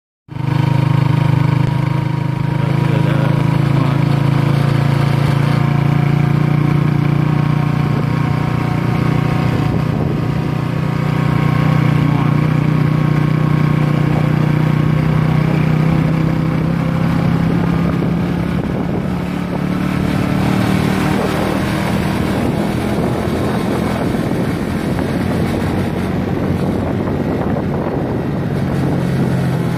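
A vehicle driving at steady speed: its engine running with a low, even hum, mixed with tyre and road noise. The hum eases for a while past the halfway point.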